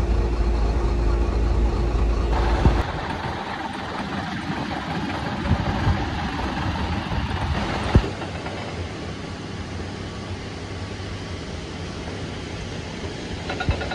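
Motor vehicle engine noise in three abruptly spliced stretches: a steady low rumble with a hum while moving, then after about three seconds a lighter engine noise near a small dump truck, then from about eight seconds a steadier, quieter noise.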